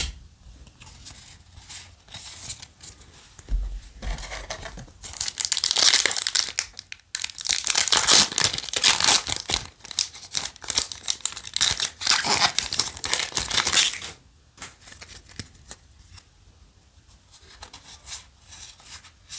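A foil Yu-Gi-Oh! booster pack wrapper being torn open and crinkled by hand, loudest from about five seconds in to about fourteen seconds in. Softer rustles of cards being handled come before and after.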